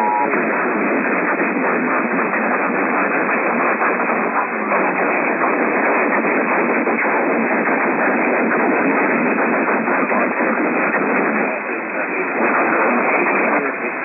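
AM radio reception of an Emergency Alert System test. The two-tone attention signal cuts off just after the start and gives way to a steady rush of AM static, with only a faint trace of the voice message beneath it.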